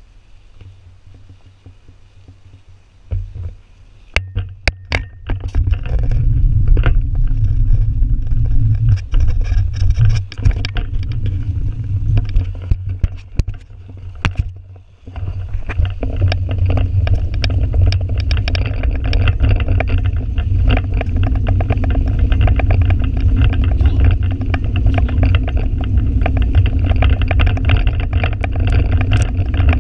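Wind buffeting a bike-mounted action camera's microphone while the mountain bike rolls fast along the trail, with tyre noise and a dense crackle of clicks and rattles over the surface. Quiet for the first few seconds, then a few knocks, then a loud, steady rumble that dips briefly around the middle before picking up again.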